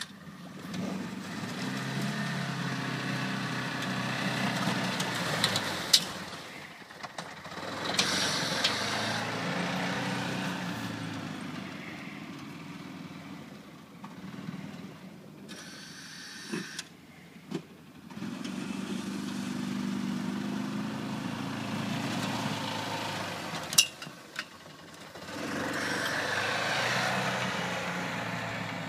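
Arctic Cat Prowler UTV engine revving up and running under load as it pushes snow with its front plow blade. It does this in about four spells, each rising and then easing off, with quieter lulls between them. Two sharp knocks come through, one about six seconds in and one near the end.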